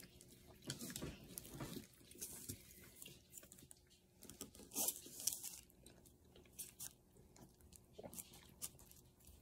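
Plastic fork cutting and scraping into a frozen ice cream cake on a paper plate: faint, scattered crunches and scrapes, one a little louder about five seconds in.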